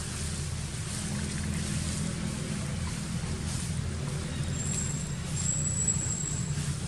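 Steady low rumble of a distant engine running, with a thin, high, steady whistle for about two seconds in the second half.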